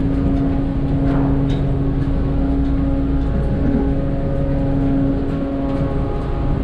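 Steady drone of a ship's engines, a constant low hum with an even rumble beneath it.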